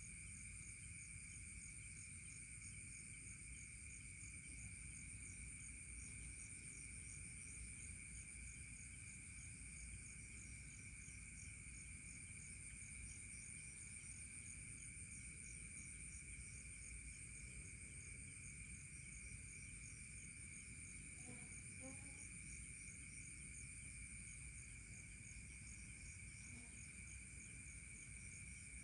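Faint night chorus of crickets and other insects: steady, unbroken trilling in two high bands, one shrill and one lower, with a quick pulsing between them. A short, faint pitched call sounds once, about three-quarters of the way through.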